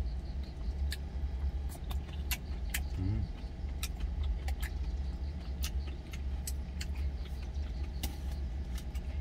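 Steady low hum of a truck engine idling, heard inside the cab, with scattered small sharp clicks of eating with chopsticks from a lunch jar and a brief hummed 'mm' about three seconds in.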